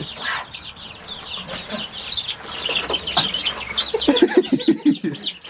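A flock of baby chicks peeping: many short, high-pitched peeps in quick succession throughout, with a few lower clucking calls about four seconds in.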